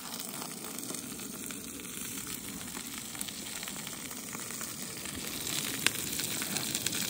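Two steaks searing in a hot skillet on a two-burner camp stove: a steady sizzle with fine crackling that slowly grows louder, and one sharp click about six seconds in.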